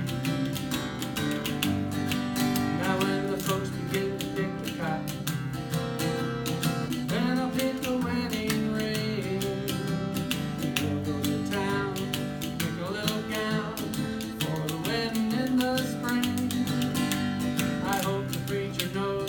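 Folk jam of two strummed acoustic guitars, a guitar played flat on the lap with notes that glide up and down like a slide, and a pair of compostable spoons clicking a steady rhythm.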